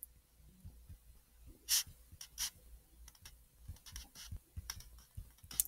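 Faint, irregular ticks and scratches of a stylus writing by hand on a touchscreen.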